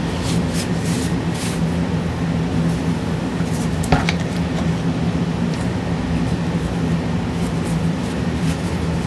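Short scratchy rustles of a paper towel wiping a graphics card's heatsink fins, with a sharper click about four seconds in, over a steady low mechanical hum.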